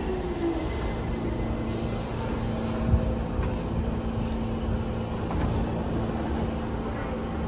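New York City Subway R46 train coming to a stop at the platform and standing: a steady electrical hum, with a falling brake whine that fades out in the first moment and a single knock about three seconds in.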